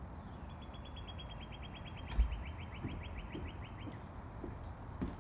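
A small songbird singing one long, even trill of rapid identical high notes, about nine a second, lasting about three seconds. A steady background hiss runs under it, and there is a dull thump about two seconds in.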